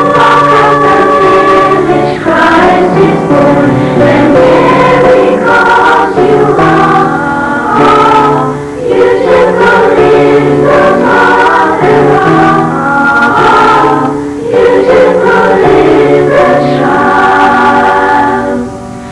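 School choir singing a Christmas song in several voice parts, with short breaks between phrases. The singing falls away near the end.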